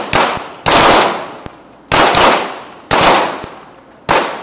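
Pistol shots from a line of shooters firing one after another, five in all, about a second apart. Each crack is followed by a long echoing tail.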